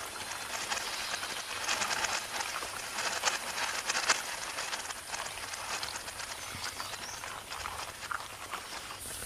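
Dense, irregular crackling and clicking of a swarm of ants scuttling over one another, busiest about two to four seconds in.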